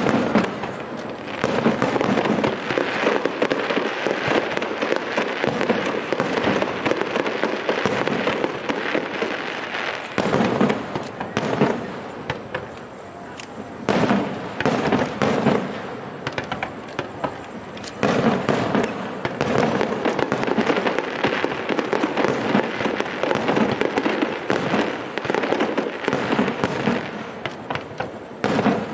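Aerial firework shells bursting one after another, with dense crackling between the bangs. It eases off briefly about halfway through and again a few seconds later.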